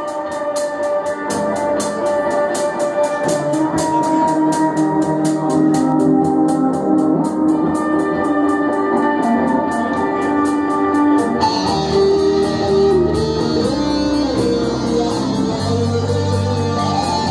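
Live rock band playing an instrumental passage on electric guitars, bass guitar and drum kit, with a steady beat and sustained guitar notes. About eleven seconds in the sound gets fuller and brighter, and a guitar note bends upward shortly after.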